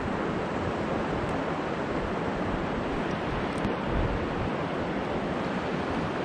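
Steady rush of river current around a wading angler, with wind buffeting the microphone in a brief gust about four seconds in.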